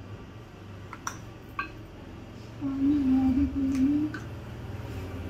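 A few light taps of a hammer on a screwdriver being worked into a green coconut's husk, with a woman humming a short low note in the middle, louder than the taps.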